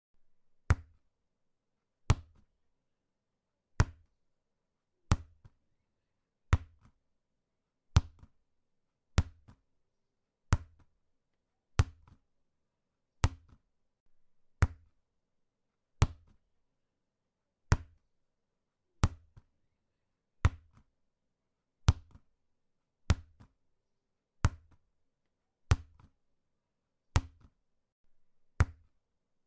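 A ball being kicked again and again: about twenty-one sharp, hollow thuds with a brief ring, one every second and a half or so.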